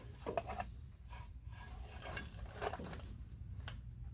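Light metal clinks and scraping of small tools and parts being handled inside a 1968 Camaro steering column, over a low steady hum.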